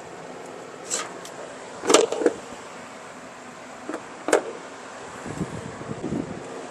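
Wire strippers clicking as they clip and twist the insulation on a wire, several sharp clicks over a few seconds, then soft handling rustle.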